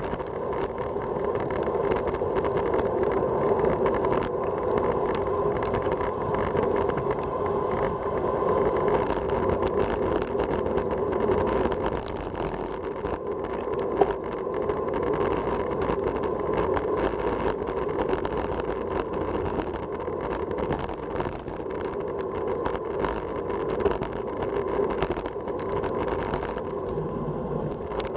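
Steady rush of wind over the microphone and tyre noise on asphalt during a fast road-bike descent, with scattered light clicks and one sharper knock about halfway through from bumps in the road.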